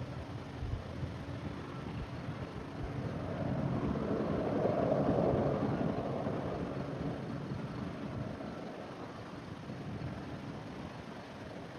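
A vehicle passing: a rushing noise swells to a peak about five seconds in and then fades, over a low steady rumble.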